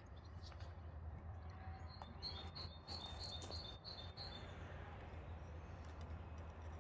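A small bird chirping, a quick run of short high notes, about five a second, lasting a second and a half, over a faint steady low hum.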